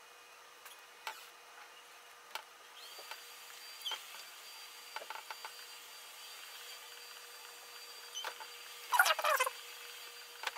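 Small clicks and taps of hard resin eggs and a brush being handled over a silicone mold and tray, with a louder, longer rattling scrape near the end. A faint steady whine runs underneath from about three seconds in.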